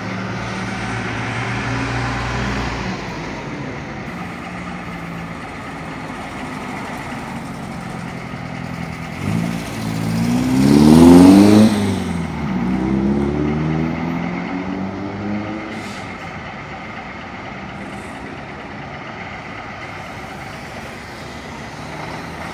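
Vintage truck engines running as a convoy goes by, with one lorry passing close about ten seconds in: its engine revs up, drops at a gear change and revs up again. This pass is the loudest part, and quieter engine sound continues afterwards.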